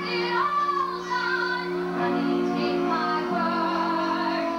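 A song playing: a woman's voice singing a wavering melody over steady held chords.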